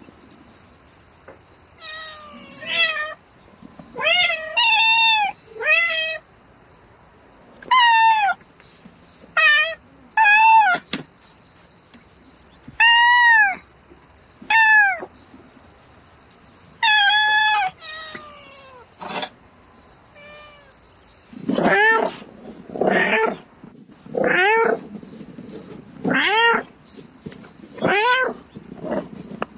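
A cat meowing over and over, calling for a mate: drawn-out calls that rise and fall in pitch, with short pauses between them. About two-thirds of the way in, the calls come faster, closer together and rougher.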